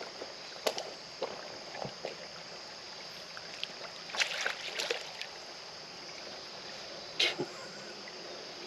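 Footsteps on the wet stones of a shallow creek bed: scattered clicks, knocks and scrapes of sneakers on rock, loudest about four to five seconds in and again near seven seconds. Under them runs the steady trickle of the creek.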